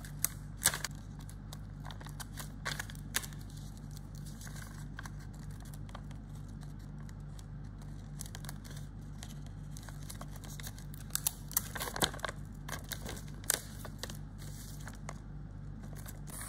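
Paper strips and sticky tape being handled, folded and pressed together by hand: scattered crinkles and crackles, busiest near the start and again about 11 to 14 seconds in, over a steady low hum.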